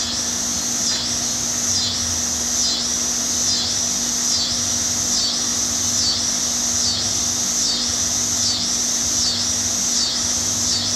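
Cicada chorus: a high, steady buzz that swells and dips in a regular rhythm a little more than once a second, over a low steady hum.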